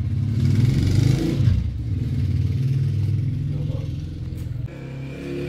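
A motor engine running, its pitch rising and falling briefly about a second in, then quieter toward the end.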